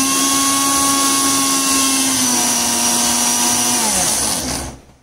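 Electric mixer grinder running steadily with a whine while grinding a wet spice paste in its steel jar, then switched off about four seconds in, its pitch falling as the motor spins down.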